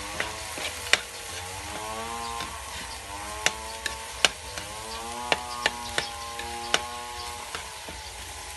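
A spatula scraping and clinking against a wok while minced pork is stir-fried, with sharp irregular clicks over a faint sizzle. Under it, a pitched droning sound wavers up and down in stretches of a second or two.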